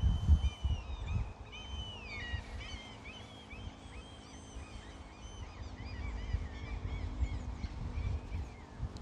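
Birds chirping and singing: many short notes that rise and fall, some overlapping, over a low, uneven rumble.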